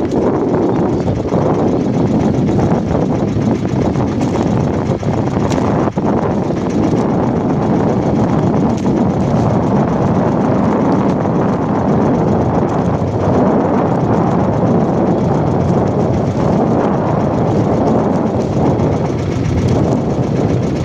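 Engine of a small outrigger fishing boat running steadily and loudly.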